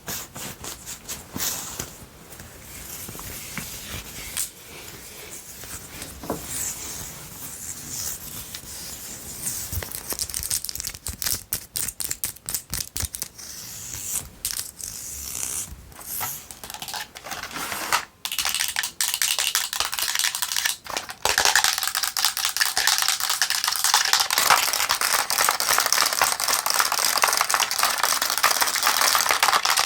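Long fingernails scratching and rubbing over the fabric of a knit sweater. After a short break about 18 seconds in, this gives way to fast, louder tapping and scratching of nails on a camera.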